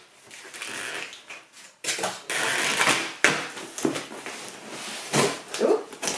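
Cardboard shipping box being torn open by its tear strip, in several separate ripping bursts with cardboard handling noise between them.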